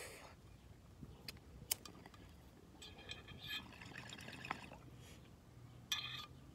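Water bubbling faintly in a glass beaker bong as a hit is drawn through it, with a couple of sharp lighter clicks about a second in and a short sharper burst near the end.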